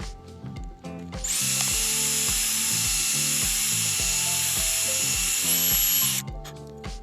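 Power drill running steadily for about five seconds, starting about a second in and stopping sharply, with a slight rise in pitch just before it stops. It is being used to wear away plastic and enlarge the too-small mounting holes on a replacement door-handle part.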